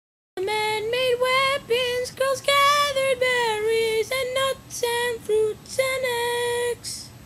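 A young female voice singing a melody in a series of short phrases with a few longer held notes, starting after a moment of dead silence.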